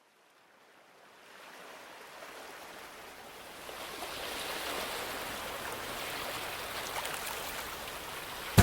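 Field recording of running water fading in from silence over the first few seconds, then holding as a steady rushing hiss.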